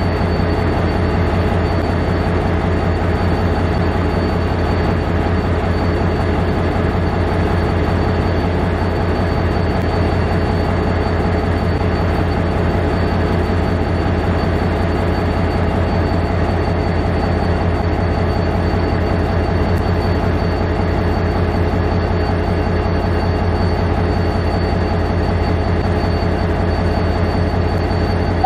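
A V/Line A class diesel-electric locomotive running steadily: a deep, even engine drone with a few steady tones over it, unchanging throughout.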